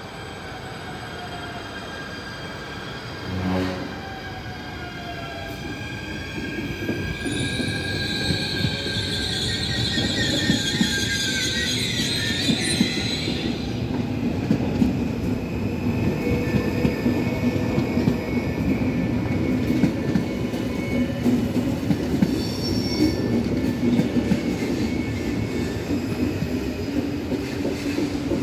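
Dutch electric passenger trains moving through the station. A short low blast comes about three and a half seconds in. From about seven to thirteen seconds a high-pitched wheel and brake squeal sounds as a double-deck train pulls in, followed by a steady, louder rumble of trains running along the platform.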